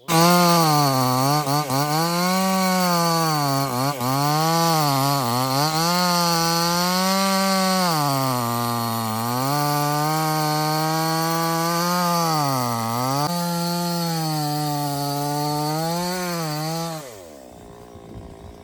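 Two-stroke chainsaw running at high revs, starting abruptly. Its pitch dips and recovers again and again. About 17 seconds in the pitch falls away and the saw drops to a much quieter low idle.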